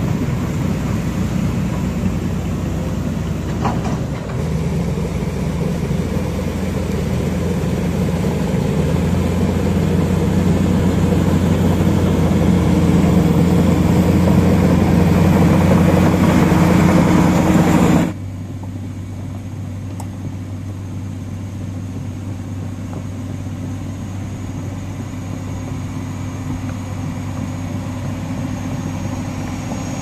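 Diesel engines of tracked heavy equipment, excavators and a crawler bulldozer, running close by with a steady low drone that grows louder over the first part. About eighteen seconds in it drops suddenly to a quieter, steady engine sound.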